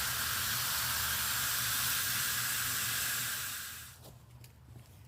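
Water spraying hard from a hose nozzle, a steady hiss, as a freshly transplanted plant is soaked in; the spray shuts off about four seconds in.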